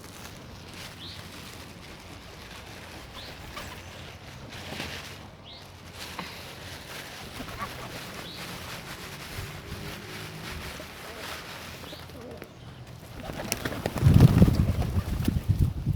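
Birds at a lakeside feeding spot giving short calls every second or two, with a loud flurry of flapping wings near the end.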